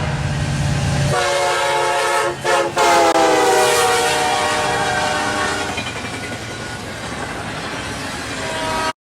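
Train air horn sounding a chord of several notes over the low rumble of the train. It starts about a second in, breaks off twice briefly, then holds a long blast that drops slightly in pitch and grows softer toward the end.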